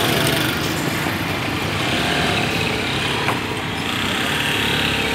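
Small engine of an auto-rickshaw running close by, a steady engine sound amid street traffic.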